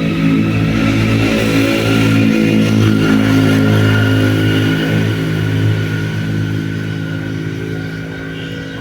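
A motor vehicle's engine running close by, a steady pitched drone that slowly fades over the last few seconds as it moves away.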